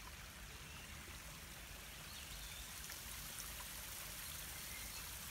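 A small stream running, a faint, steady rush of water.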